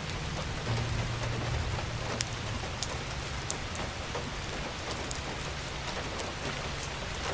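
Wood fire burning in a fireplace: a steady crackling hiss with scattered sharp pops.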